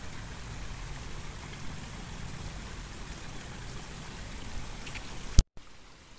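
Steady hiss of running river water. About five and a half seconds in it cuts off with a sharp click and a moment of dead silence, then a quieter background.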